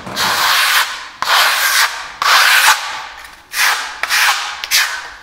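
Plastering trowel scraping pearlescent decorative plaster across a wall in about five quick strokes, each under a second long.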